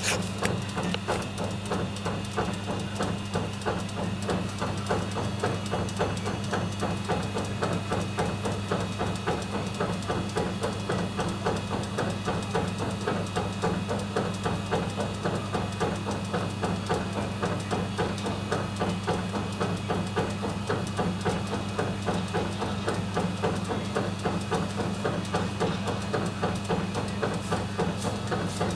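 Baumkuchen oven with its cake spit turning: a steady electric hum under a quick, even mechanical clatter from the spit drive.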